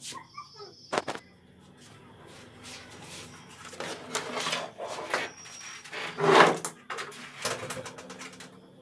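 Knocks, scrapes and clunks as a CRT picture tube is handled and lifted out of a TV's plastic cabinet. The loudest knock comes about six seconds in.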